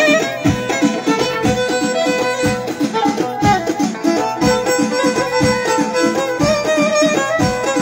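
Moroccan Middle Atlas Amazigh ahouzar dance music: a violin played upright on the knee carries the melody over frame drums, a drum kit and keyboard. The drum beat is steady and driving.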